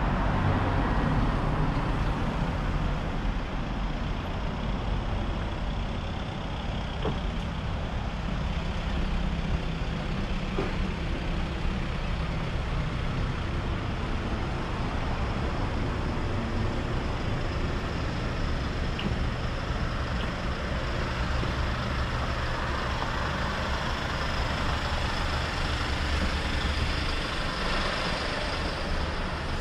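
Road traffic noise: a steady wash of passing vehicles with a low engine rumble underneath, with no distinct horn or brake event standing out.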